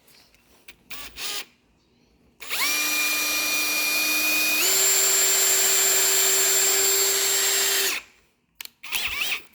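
Power drill drilling out a screw hole in a wooden door jamb. The motor whines steadily for about five seconds, steps up in speed partway through, then stops. A short blip of the trigger follows near the end.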